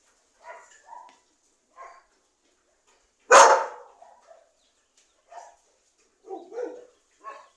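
A group of dogs barking in short, scattered barks, with one much louder bark about three and a half seconds in.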